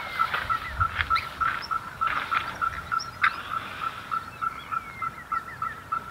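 Birds calling: one bird repeats a short, even note about four times a second, over quicker chirps and down-slurred calls, with a few sharp knocks in the first half.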